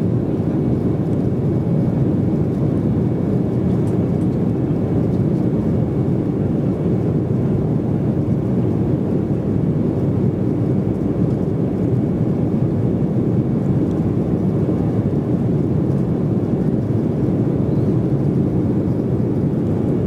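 Steady cabin noise inside an Embraer E190 in flight: the rush of air over the fuselage mixed with the drone of its underwing GE CF34-10E turbofan engines, heard from a window seat. The noise is deep and even, without bumps or knocks.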